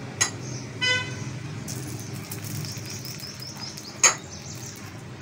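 A silicone spatula knocks sharply on a frying pan of melted sugar syrup, once about four seconds in and again at the end. A short high-pitched chirp comes about a second in, over a faint steady background.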